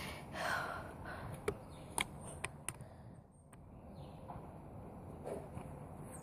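A soft breath near the start, then four sharp clicks within about a second, over low rustling.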